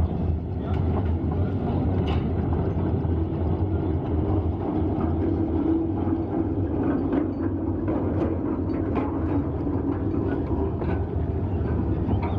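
A small narrow-gauge field-railway locomotive hauling a train of steel skip wagons slowly past: a steady low drone, with the wheels and wagons clanking and rattling over the track.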